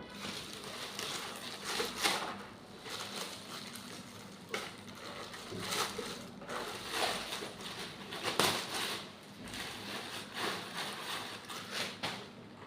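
Packaging rustling and crinkling as a keyboard is unpacked from its box, with a few sharp clicks, the loudest about eight seconds in.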